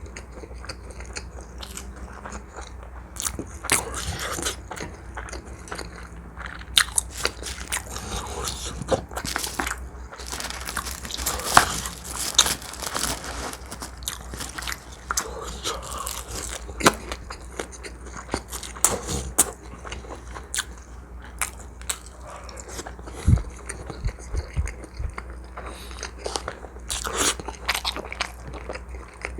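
Close-miked eating sounds of a person biting and chewing, with irregular crunches, smacks and clicks.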